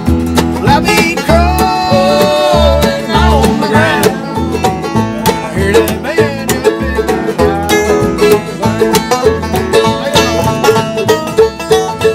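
Acoustic bluegrass band playing live: resonator banjo, acoustic guitar, mandolin and upright bass. A voice sings over the first few seconds, then fast banjo picking comes to the front.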